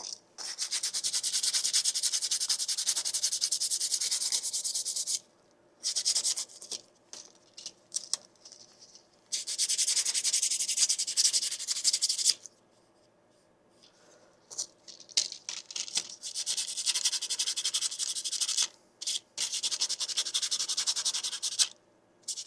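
Sandpaper rubbed by hand along the edge of a 3D-printed plastic part: fast, high-pitched rasping strokes in three long stretches, with short pauses and a few small handling clicks between them.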